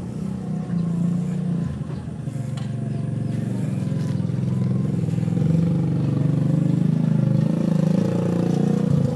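Corded electric hair clippers buzzing steadily as they cut through a man's hair, getting a little louder a few seconds in as they press into the hair.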